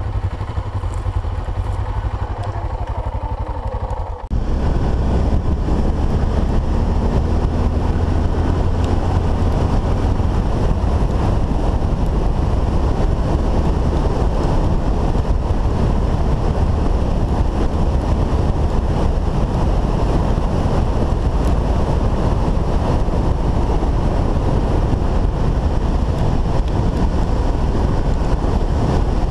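Dual-sport motorcycle engine running slowly, with its even engine tones. About four seconds in there is a sudden cut to the bike riding fast on a dirt track: a steady, loud rush of wind on the microphone with a deep rumble over the engine and tyres.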